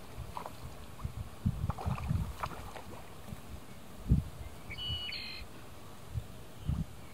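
Outdoor wind noise on the microphone: irregular low rumbles and thumps, the loudest about four seconds in. A short, high bird call sounds about five seconds in.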